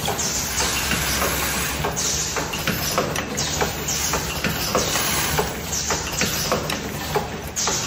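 Automatic zipper slider mounting and cutting machine running: a steady hum with repeated short hisses of air from its pneumatic cylinders and quick mechanical clicks, as the vibratory bowl feeder shakes metal sliders along its track.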